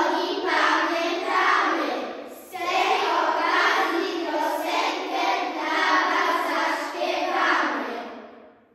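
A class of young children's voices in unison, two phrases with a short break about two and a half seconds in, fading out near the end.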